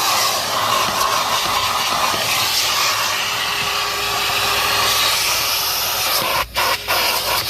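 Numatic NTD570 commercial vacuum cleaner running, its hose drawing air with a steady hiss; the sound dips briefly twice near the end.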